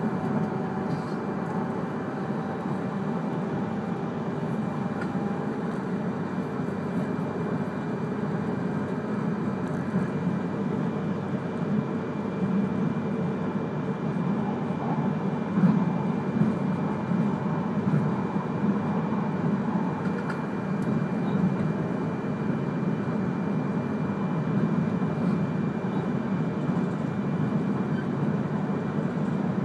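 Inside the cabin of an E3-series Komachi train running at speed: a steady low rumble of wheels on rail. A faint whine falls slightly in pitch over the first few seconds, and there is one brief louder knock about halfway through.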